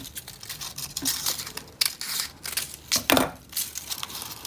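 Brown packaging paper crinkling and rustling as fringed strips are rolled tightly around a small stick, in irregular rustles that are loudest about three seconds in.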